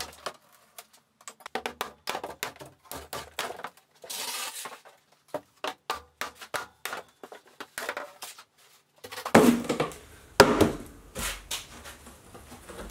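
Plywood shipping crate being taken apart by hand: a run of small clicks and knocks, a short scrape about four seconds in, then heavier thumps and scraping as the wooden panels are pulled away from about nine seconds.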